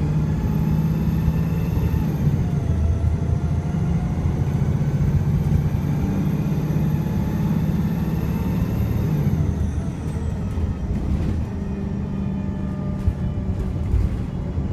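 VDL SB200 bus's engine pulling hard, its pitch climbing, dipping at a gear change about two seconds in, then climbing again before falling away as the bus eases off about ten seconds in. The engine is misfiring.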